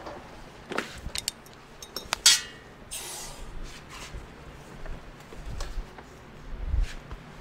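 Metal tools and parts being handled on a workbench: scattered clinks and knocks, with one sharp, loud clank about two seconds in.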